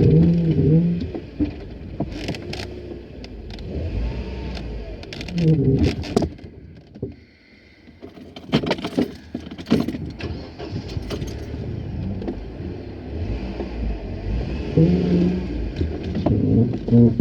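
Mercedes-Benz 190E on the move, heard from inside its glove box: the engine running and changing pitch under a layer of road noise, with loose knocks and rattles. It quietens briefly about halfway through.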